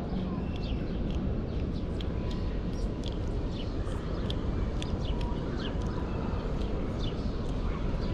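Small birds chirping in short, scattered calls over a steady background hum of outdoor noise.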